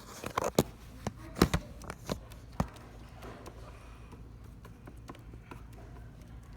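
Slime of Elmer's glue and Tide detergent being worked on a plate, giving a run of short sticky clicks and taps during the first three seconds, then only faint room tone.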